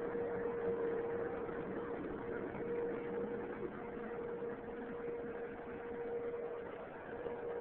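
Vacuum cleaner running steadily, its motor giving a constant hum with a steady whine over the rush of air.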